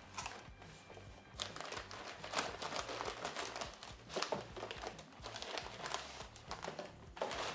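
Packing paper crinkling and rustling, irregular and continuous, as it is handled and pulled out of a cardboard shipping box.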